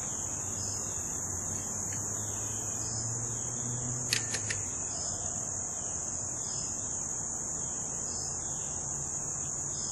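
Steady high-pitched insect chorus, with a few quick clicks about four seconds in.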